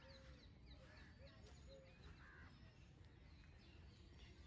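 Faint outdoor ambience of birds chirping and calling: many short, quick chirps and a few soft higher calls, over a low background rumble.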